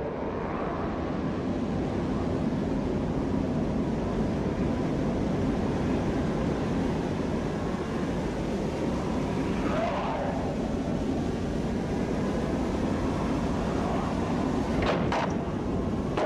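Film sound effect of the unseen evil force rushing forward: a loud, steady, low rushing roar, with a brief wavering moan about ten seconds in and a few sharp bangs near the end.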